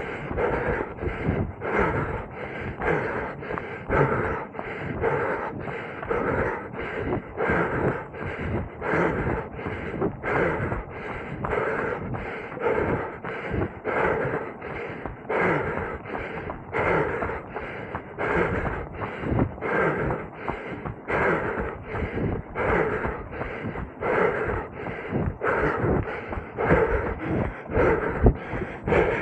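A runner's hard, rhythmic panting, breath after breath in a steady beat, from the effort of running a hilly course.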